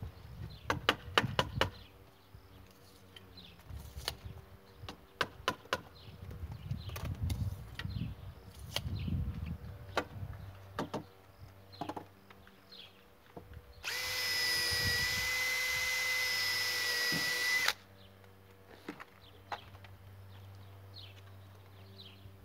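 Power drill running steadily at one pitch for about four seconds, about two-thirds of the way through, with scattered knocks and clicks before and after it.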